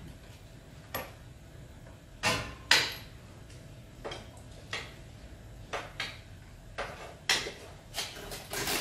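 Hands screwing the brass fitting of a flexible spray hose onto a backpack sprayer's lance: irregular light clicks, knocks and handling rustles, the loudest two close together about two and a half seconds in.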